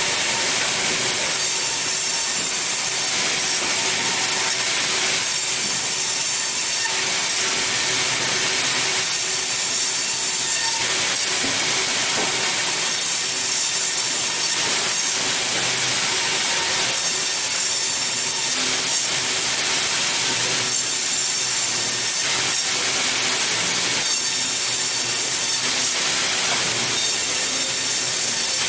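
Sawmill saw cutting through wood with a steady, loud, high-pitched noise that does not let up.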